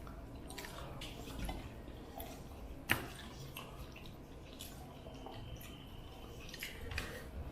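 Quiet dinner-table eating sounds: food being handled on plates, with a sharp clink about three seconds in and a few softer clinks near the end.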